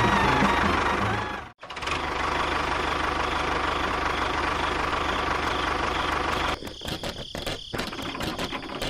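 Engine running steadily, with a sudden break about a second and a half in; about two-thirds through it turns choppy and uneven.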